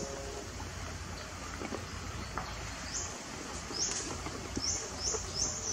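Outdoor ambience: a steady low hiss with faint scattered rustles, and from about halfway a series of short, high chirps repeating about twice a second.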